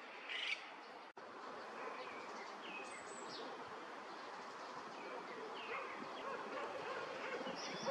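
Steady insect buzz with short, scattered bird chirps over it, the loudest about half a second in. The sound drops out for an instant about a second in.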